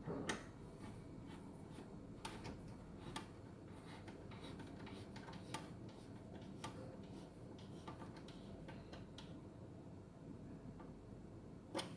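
Sparse, irregular faint clicks and light taps of small hand work: an Allen key turning the screws that fix a motorcycle windscreen to its rubber-mounted bracket.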